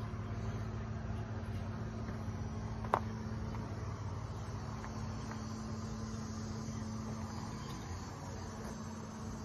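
A steady low hum over an even hiss, with a single sharp click about three seconds in.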